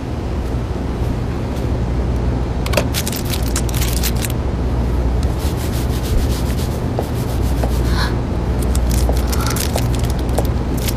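Rustling and sharp clicking of a clear plastic food container being handled, in two bursts, about three seconds in and again about eight seconds in, over a steady low hum.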